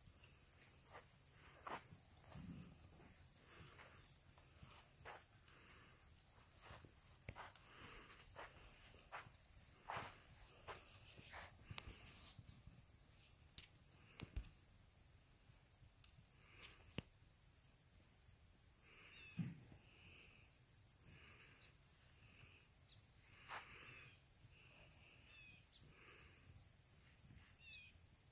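Insects chirring steadily in the surrounding grass, a faint high pulsing drone, with scattered soft knocks beneath it.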